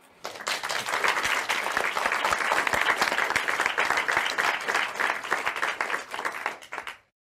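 Crowd applause, a dense steady clapping that fades out near the end.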